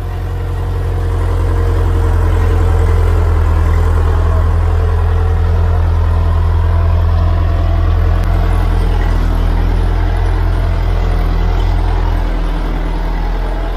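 Powertrac Euro 55 tractor's diesel engine running steadily under load while pulling a disc plough through hard, dry soil. The engine note builds over the first couple of seconds and eases slightly near the end.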